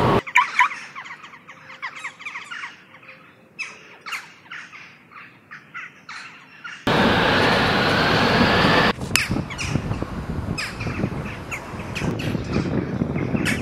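Birds chirping and calling in short, scattered notes. About seven seconds in, a loud, steady rushing noise cuts in suddenly and carries on, with chirps still audible over it.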